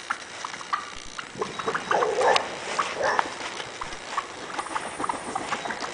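A flock of wild turkeys calling: many short, scattered clucks, with louder calls about two and three seconds in.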